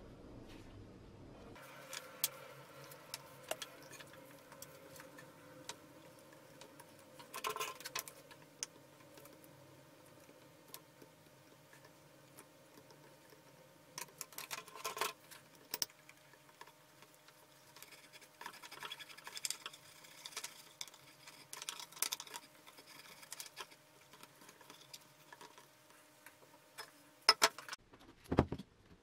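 Small clicks, taps and rustles of electrical cable and small parts being handled against a metal lamp shade during rewiring, with a few louder knocks, the loudest near the end.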